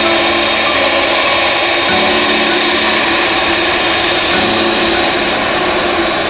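Steady, loud roar of a jet airliner's engines as it passes low on approach to land. Slow background music chords change underneath.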